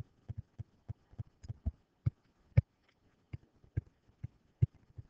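Stylus tip tapping and knocking on a writing screen while words are handwritten: a string of short, irregular clicks, the sharpest about two and a half seconds in.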